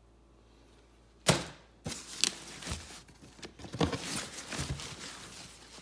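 A sharp knock just over a second in, then irregular rustling and crinkling as a cardboard boot box and its packing paper are handled.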